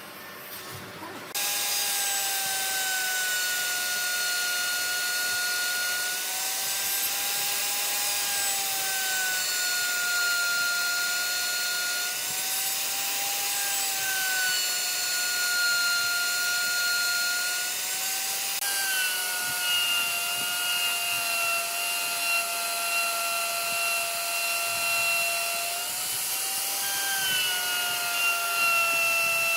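Electric woodworking power tool cutting wood: a steady motor whine over a rushing hiss, starting about a second and a half in. Every few seconds the pitch sags a little and recovers as the tool goes into and out of the cut.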